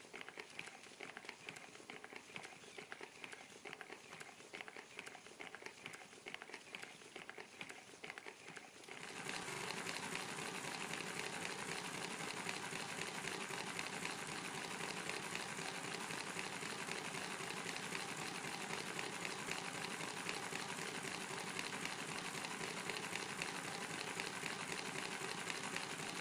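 Miniature multi-cylinder model engine running with a fast, even mechanical clatter, getting louder about nine seconds in.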